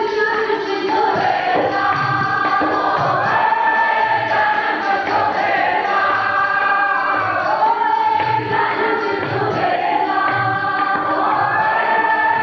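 Sikh kirtan: an elderly male raagi singing a shabad in held, slowly bending phrases, with harmonium and a steady tabla beat of low thumps.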